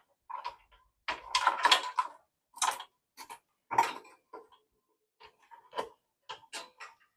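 Sharp clicks and light rattles of the power-button cable being worked out of its plastic holders inside an HP EliteDesk 800 G2 small-form-factor desktop case. They come in irregular bunches, the busiest about a second in.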